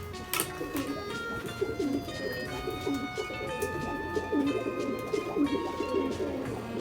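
Nikolaev pigeons cooing over and over, over background music of held, stepwise-changing notes.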